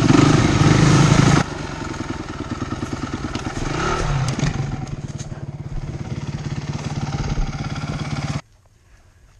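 Dirt bike engine running loud under throttle, then dropping to a lower, pulsing note with a short rise in revs around four seconds in and a few light knocks as the bike goes down on the trail. The engine sound cuts off abruptly about eight seconds in.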